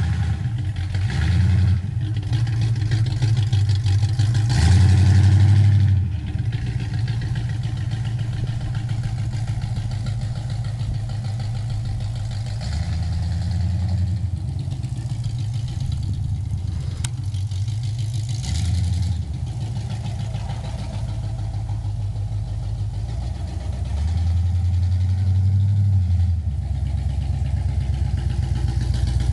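The Chevy engine in a 1977 Buick LeSabre idling, with several brief revs of the throttle.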